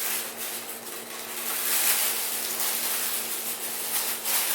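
Packaging being handled and opened: rustling and crinkling with scattered crackles, louder in the middle, over a steady low hum.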